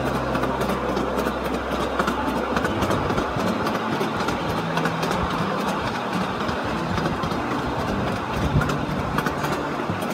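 Ride-on miniature park train running along its track, with its wheels and cars clattering and rattling in a dense run of sharp clicks.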